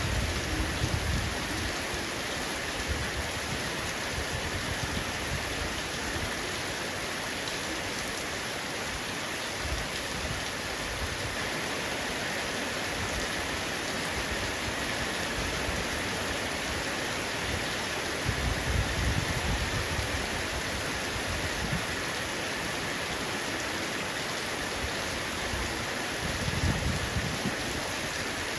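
Heavy rain pattering steadily on a roof. Low rumbles swell and fade about four times.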